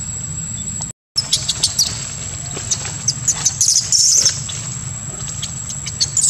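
Outdoor ambience: a steady high whine over a low rumble, with many short high-pitched chirps and squeaks and a louder burst of squeaking about four seconds in. The sound drops out briefly about a second in.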